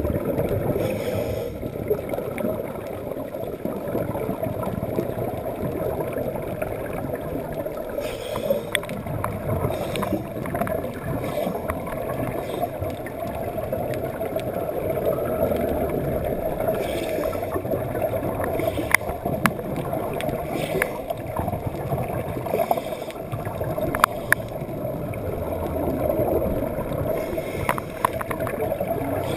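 Underwater sound heard through a GoPro housing: a steady muffled rumble of water, broken every several seconds by a gurgling rush of a diver's exhaled air bubbles. A few sharp clicks come about two-thirds of the way in.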